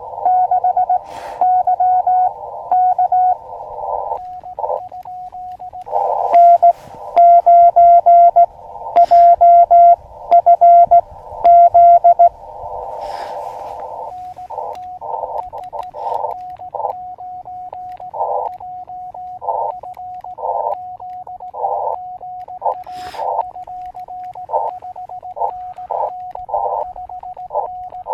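Morse code (CW) tones from an Elecraft KX2 transceiver: a single pitched tone keyed in dots and dashes over a narrow band of receiver hiss. A louder, cleaner run of keyed tone comes in the middle, and a few sharp clicks are scattered through.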